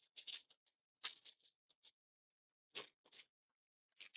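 Faint, scattered clicks and rustles of small parts being handled on a workbench, a few light taps a second apart.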